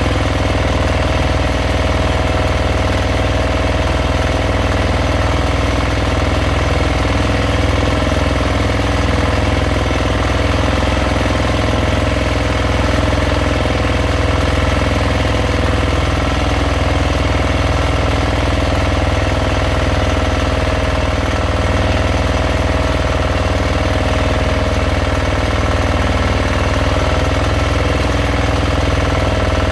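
Fishing boat's engine running steadily at an even speed, a constant low drone with a steady hum above it.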